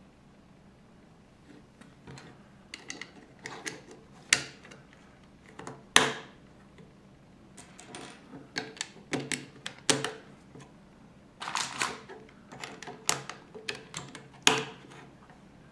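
Plastic Lego bricks clicking and clattering as they are handled and pressed together, in irregular sharp clicks, the loudest about six seconds in.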